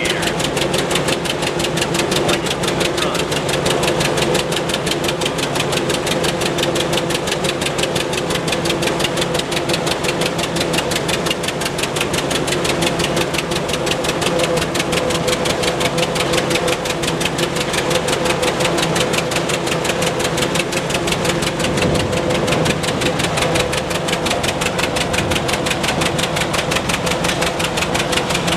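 Hart-Parr 18-36 tractor's two-cylinder engine working steadily while pulling a chained load, with a fast, even exhaust beat that keeps the same pace throughout.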